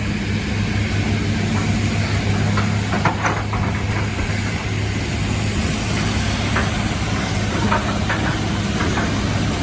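Engine of a heavy logging vehicle running steadily at low speed, with a few short metallic knocks or clanks scattered through, the loudest about three seconds in.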